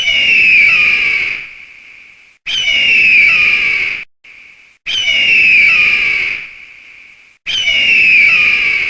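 Eagle screeching: a high, piercing cry that falls in pitch, repeated four times about every two and a half seconds, each call trailing off over a second or so.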